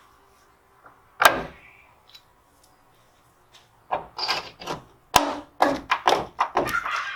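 A single sharp knock about a second in, then a rapid run of wooden knocks and clatters: hand work pulling the wooden strips that held house wrap off a barn wall.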